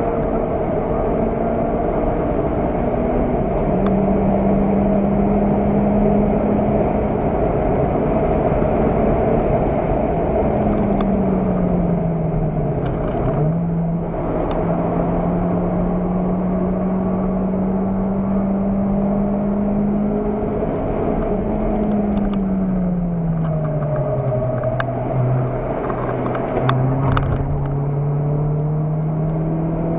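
Car engine driven hard on a race circuit, heard from inside the cabin over road and wind noise. Its note holds steady, then falls and climbs back up twice as the car slows and accelerates again.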